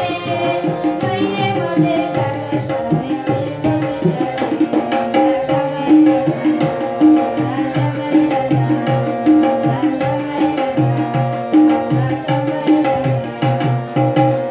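Harmonium playing a melody of held chords, accompanied by a pair of tabla drums striking a quick, steady rhythm.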